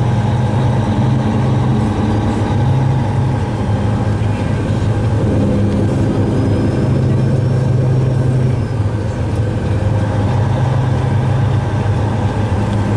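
Heavy truck's engine running steadily as it drives, heard from inside the cab as a low, even hum over road noise.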